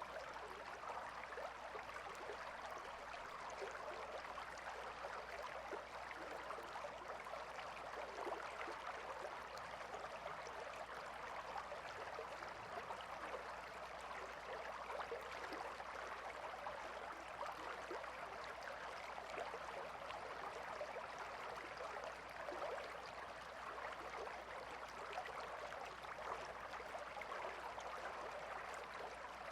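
Calm river flowing: a steady, even sound of running water with fine trickling detail.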